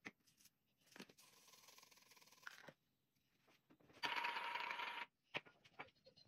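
Hand-twisted spice grinder grinding seasoning onto a raw steak for about a second, a gritty rasp with a steady tone running through it. Before it comes a softer stretch of shaking or grinding, and a few light clicks of the jars being handled.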